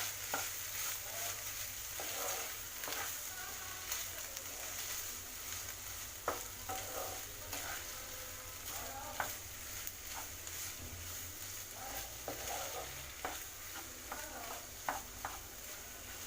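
A spatula stirring and scraping a potato and paneer stuffing in a pan over the gas, with a faint steady sizzle and occasional clicks of the spatula against the pan.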